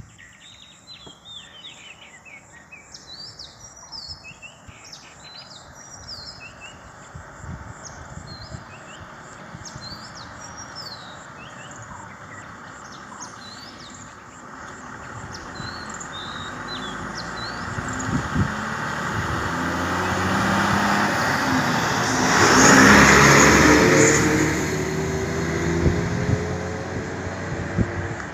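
Birds chirping for the first dozen seconds. Then a motor vehicle's engine and tyre noise build steadily as it approaches and passes close by, loudest about two-thirds of the way through, then easing off.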